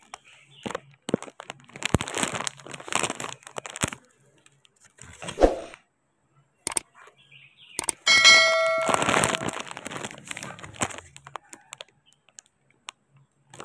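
Mango leaves rustling and crackling as branches are brushed and pushed aside, with scattered sharp clicks. About eight seconds in comes a brief loud ding, a ringing of several pitches at once.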